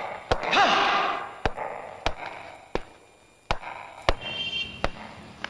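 Heavy footstep thuds on stairs, one about every half second to a second, played as a dramatic sound effect. A short voice-like wail rises and falls near the start.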